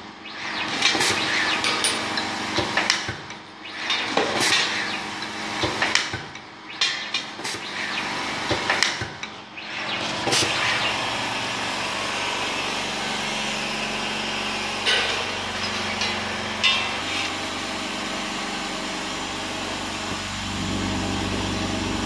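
Folding labeling machine for hoses running: a steady hum, with irregular clicks and clacks as hoses are fed in and labeled for about the first ten seconds, then mostly the steady hum with an occasional click.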